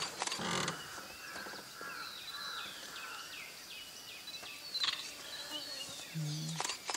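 Forest ambience: small birds give a string of short, falling chirps, several a second, over a steady insect-like hiss, with a few sharp clicks.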